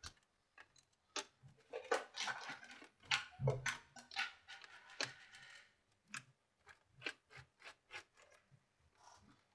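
Quiet, scattered small clicks and short scrapes of a screwdriver, screws and plastic parts being handled as the cooling fan is unscrewed and lifted out of a Nintendo Wii, with one dull knock about three and a half seconds in.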